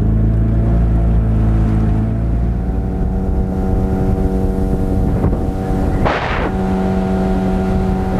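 15 hp outboard motor running at a steady speed, with a short rushing hiss about six seconds in.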